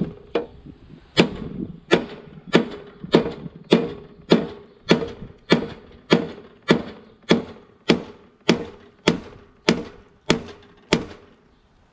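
Small sledgehammer striking the steel deck of a lawn mower in steady blows about every 0.6 s, each with a short metallic ring; the blows stop near the end.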